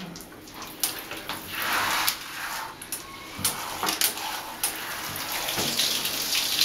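Shower water spraying onto a dog's shampooed fur and splashing in the tub as it is rinsed, the running water rising and falling unevenly with small knocks.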